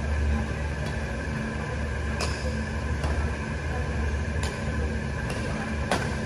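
Badminton rally: rackets strike the shuttlecock in about six sharp, short hits roughly a second apart, over a steady low hum.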